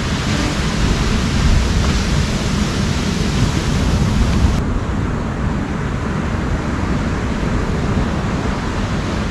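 Steady rush of wind and surf, with wind rumbling on the microphone. The higher hiss drops away abruptly about halfway through.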